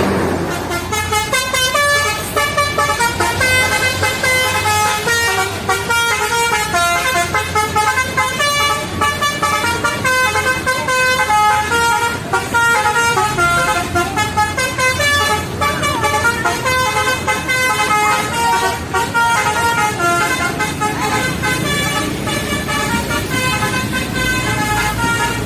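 Basuri-style musical vehicle horn (the Indonesian 'telolet' horn) playing a fast tune of short notes stepping up and down in pitch.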